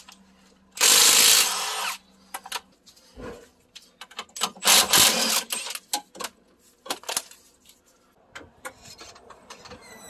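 Milwaukee Fuel cordless impact wrench hammering in two bursts, about a second in and about five seconds in, as it spins off a wheel lug nut and then the top nut of the sway bar link, with small clicks and knocks of the tool and parts between.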